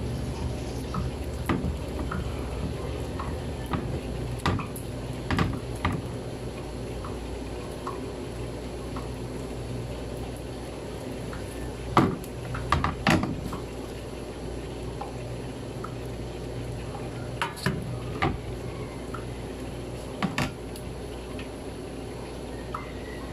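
A spatula pressing, smearing and scraping soft homemade butter on a wooden cutting board, working out the leftover buttermilk. Scattered wet squishes, taps and scrapes over a steady low hum, with the loudest knocks about halfway through.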